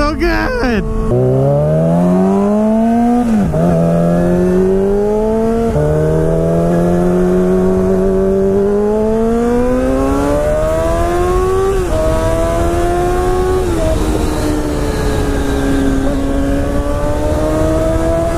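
Yamaha R6 600cc inline-four sport bike accelerating hard through the gears on a cut-down shorty exhaust. The engine note climbs steeply and drops at each of about four upshifts, then settles into a steadier cruise, with wind rushing at the helmet camera.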